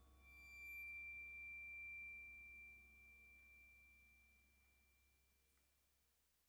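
A small metal percussion instrument struck once, giving a single high, pure bell-like tone. A brief shimmer of higher overtones dies quickly, and the main tone rings on and fades slowly over several seconds.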